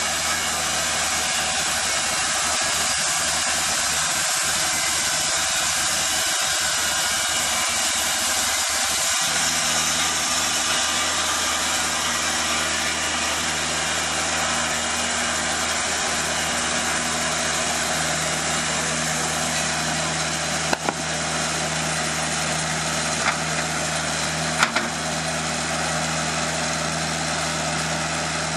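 TimberKing 2000 portable bandsaw mill running steadily, its band blade sawing through a cant of Elaeocarpus grandis under a water spray, with the engine's steady hum underneath. A few sharp clicks come near the end.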